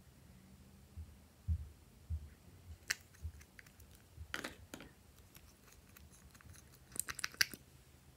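Light plastic clicks and taps from small cosmetic bottles and their applicator caps being handled. Soft low thumps come in the first four seconds, and a quick cluster of clicks comes near the end.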